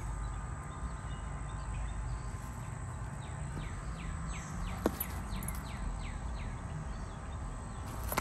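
Outdoor background with a steady low rumble, and a bird calling a quick run of short descending chirps, several a second, in the middle. A single sharp tick sounds about five seconds in.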